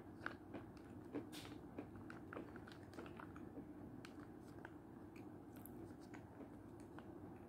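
Faint scattered clicks and light taps of a plastic spoon stirring in a plastic tub of milk soup, over a low steady hum.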